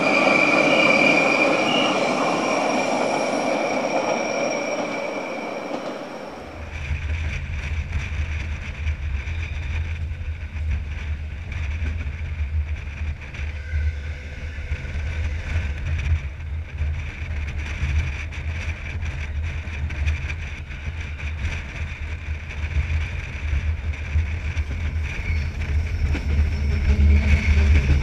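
Rhaetian Railway electric locomotives haul a freight train across a curved viaduct, their running noise carrying a steady high wheel squeal. About six seconds in, this gives way to the heavy, steady low rumble of a passenger coach running through a tunnel and out onto the viaduct, with a faint wheel squeal again near the end.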